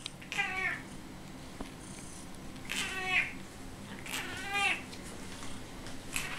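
Domestic cat meowing three times, short calls each about half a second long.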